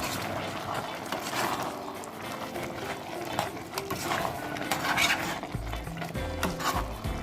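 Utensils clattering and scraping against a bowl or pot, as in stirring food, over background music.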